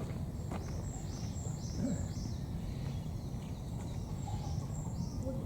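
A western lowland gorilla chewing raw vegetables, a steady low crunching with a few sharper cracks. Small birds chirp in quick runs of short calls, about a second in and again near the end.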